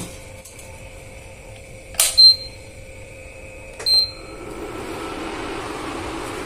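Pigeon induction cooktop: a short high beep as a control button is pressed about two seconds in and again about four seconds in, after which its cooling fan starts and runs with a steady whir. A knock at the start as the steel pan is set down.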